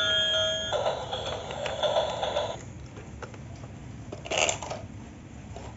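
Battery-powered light-up toy gear train: its electronic tones stop about half a second in, then its plastic gears whirr for about two seconds. After that come quiet handling clicks and a brief scrape about four seconds in.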